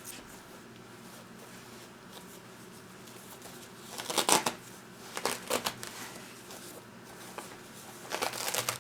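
Plastic wrapping being peeled off a freshly glued shoe patch, where the glue has stuck it fast: three short rustling, tearing bursts, about four, five and eight seconds in.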